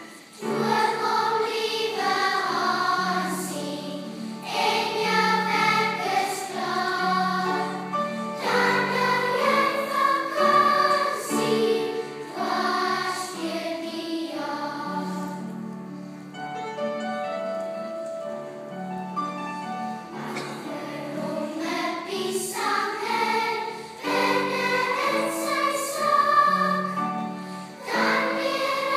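A choir singing, several voice parts holding notes together in sustained phrases.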